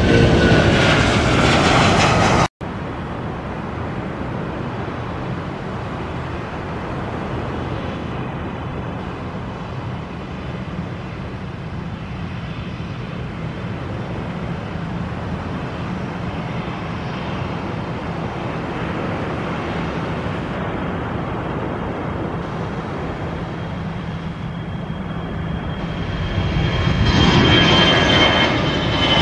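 Jet airliner engines at takeoff: a loud roar with a falling whine that cuts off abruptly a couple of seconds in. Then a steadier, quieter jet rumble, which swells again near the end with a high whine falling in pitch.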